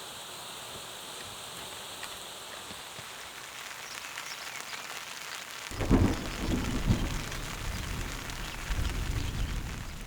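Steady rain falling, with a low rumble of thunder rising about six seconds in and rolling on, swelling and fading, to the end.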